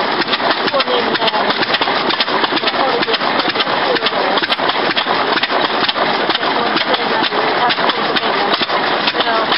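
Crossley stationary engine running, with a fast, even clatter of knocks.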